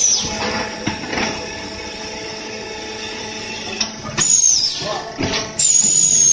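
Concrete pan mixer running with a steady machine hum as its paddles churn damp concrete. Then, about four seconds in, the terrazzo tile press machinery gives high-pitched metallic squeals, a short one and then a longer one near the end, each sliding slightly down in pitch.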